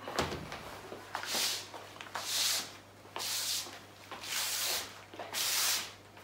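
Rhythmic swishing rubs, about one a second, six strokes in all.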